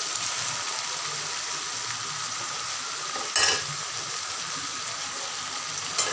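Chopped vegetables sizzling steadily as they sauté in oil in an aluminium kadai. A stirring spoon scrapes sharply against the pan about three and a half seconds in and again near the end.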